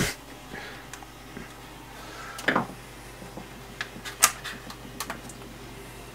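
Small clicks, taps and rustles of hands handling ribbon cables and plastic and metal parts inside an opened Pioneer CDJ-800 MK2. There are louder knocks about two and a half seconds in and just after four seconds.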